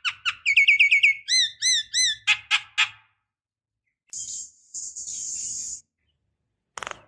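Javan myna singing: a quick run of down-slurred whistles, a few rising-and-falling whistled notes, and a fast rattle of clicks. About four seconds in comes a harsh, hissing screech of nearly two seconds.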